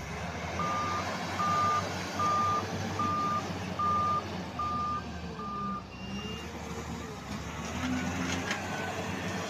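Heavy diesel equipment running with its backup warning alarm beeping: seven evenly spaced single-pitch beeps, a little more than one a second, that stop a bit past halfway while the engine rumble carries on.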